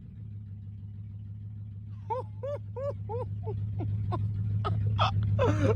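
Chrysler 300's Hemi V8 engine running steadily with a low hum that grows a little louder. From about two seconds in, it is joined by a person's high-pitched laughing in quick repeated bursts.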